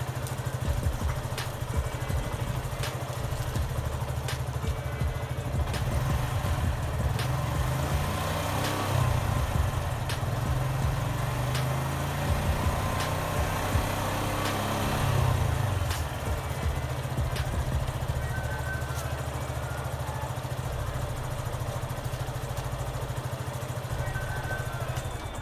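Suzuki Gixxer SF 155's single-cylinder engine running steadily at idle, a little busier in the middle, with light ticks about once a second.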